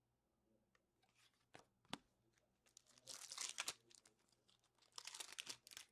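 Faint crinkling and tearing of foil trading-card pack wrappers as hockey card packs are opened. Two spells of crinkling come about three and five seconds in, after a couple of light clicks.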